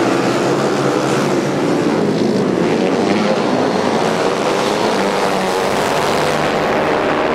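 Several youth speedway motorcycle engines running at once: a steady, loud drone of overlapping engine notes.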